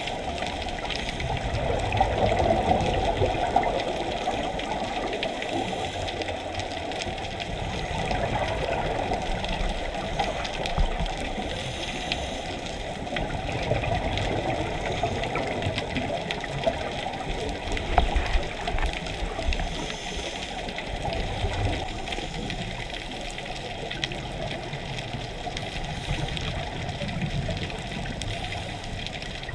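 Muffled underwater rush of scuba divers' exhaled bubbles and regulator breathing, heard through a camera's waterproof housing, swelling and fading every few seconds.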